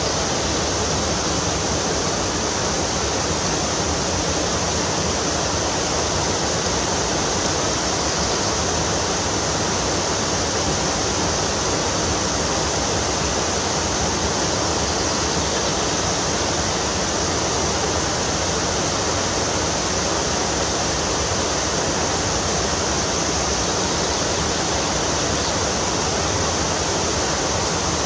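Fast-flowing stream water rushing steadily, with no change in level.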